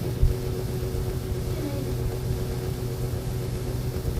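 Steady low electrical hum made of several even tones over a constant rumble, with a single knock about a quarter second in.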